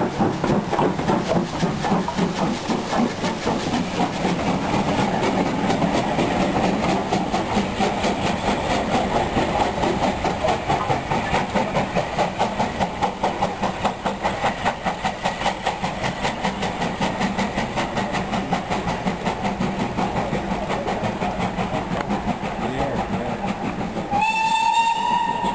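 Bulleid West Country class steam locomotive 21C123 'Blackmoor Vale' pulling away, its exhaust beating in a quick, steady rhythm that fades as it draws away. A steam whistle sounds briefly near the end, rising slightly in pitch.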